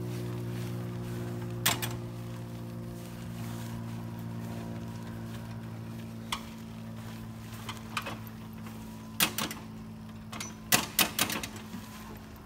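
Steady hum of an inflatable T-Rex costume's blower fan, with scattered knocks and clunks as the wearer climbs onto a John Deere riding lawn mower, the loudest cluster near the end. The mower's engine is not running.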